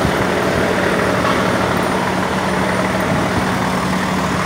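Isuzu Giga self-loader truck's diesel engine idling steadily.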